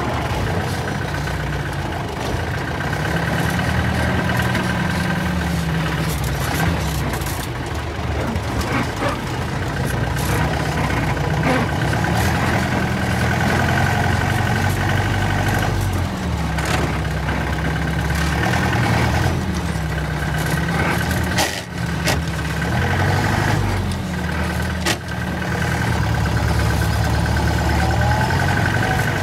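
1985 Mahindra jeep's engine running, its revs rising and falling several times as the gear and four-wheel-drive levers are worked, with a few short sharp knocks.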